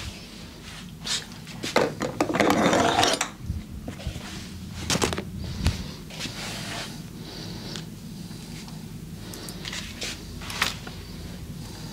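Hands rubbing and working over skin and clothing during a massage, with a louder stretch of rustling about two seconds in and a few sharp clicks, one about five seconds in and another near ten seconds.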